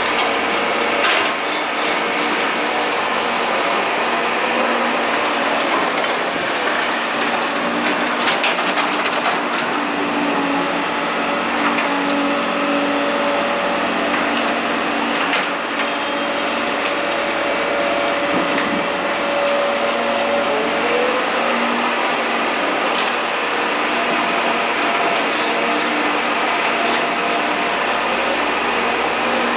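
Caterpillar E240B excavator working, its diesel engine running steadily under load with a constant drone and a few sharp knocks. The pitch rises briefly about twenty seconds in.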